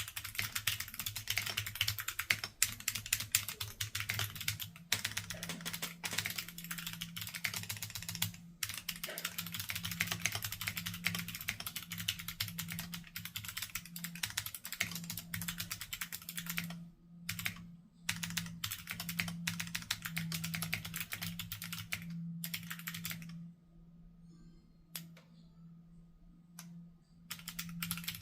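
Fast, continuous typing on a mechanical keyboard with NK Cream clicky switches: a dense stream of sharp key clicks. It breaks briefly a couple of times, then thins to a few scattered keystrokes for several seconds before the fast typing resumes near the end. A faint steady low hum sits underneath.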